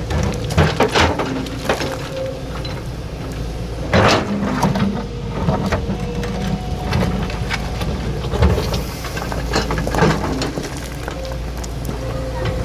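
Excavator's diesel engine running steadily, with knocks and thuds every few seconds, the strongest about four seconds in and around ten seconds in.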